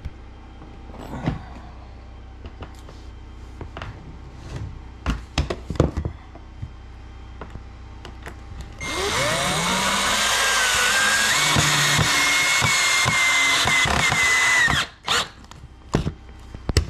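Wooden boards knocked and shifted by hand, then a cordless drill spins up about nine seconds in and runs for about six seconds, boring through a pine board, before stopping suddenly.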